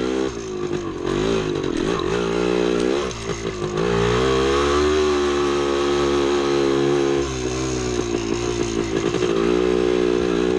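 1975 Yamaha DT250's single-cylinder two-stroke engine under way on a trail ride, its pitch falling and climbing several times in the first few seconds as the throttle is rolled off and on, then holding higher and steadier for a few seconds before wavering again.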